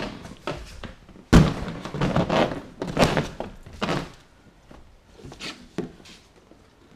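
Handling noise from fitting a seat into an inflatable kayak: a sharp thunk about a second in, then rustling and knocking of the seat against the inflated tubes, dying down to a few faint knocks after about four seconds.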